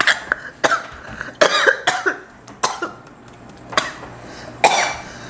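A person coughing in a string of short, sharp coughs after swallowing food the wrong way, which they put down to probably swallowing a nut.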